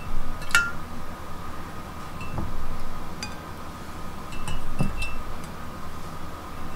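Peeled hard-boiled eggs dropped one by one into a glass mason jar of pickle brine. They clink against the glass with short ringing tones, and land with a few soft thuds in the liquid.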